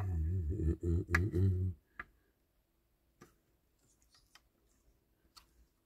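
A man hums briefly for the first couple of seconds. Then a few scattered light clicks come as a small screwdriver turns a screw into the baseplate of a Dinky Toys diecast model.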